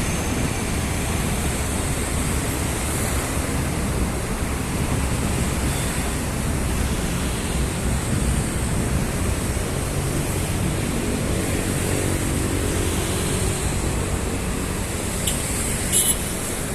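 Steady city road traffic noise, a continuous wash of passing vehicles. A vehicle engine hum stands out for a few seconds in the second half, and two brief sharp clicks come near the end.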